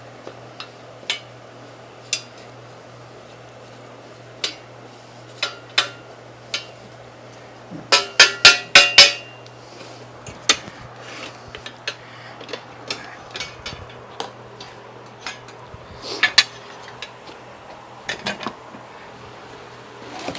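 Scattered clicks and metal clinks as a hand tool knocks and scrapes caked grass and dirt off the steering sector gear of a John Deere 120 lawn tractor, with a quick run of about five loud, ringing metal strikes about eight seconds in. A steady low hum runs underneath.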